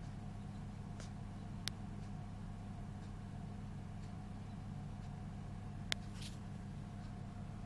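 Steady low electrical hum from a homemade egg incubator, with a few sharp clicks about one, two and six seconds in.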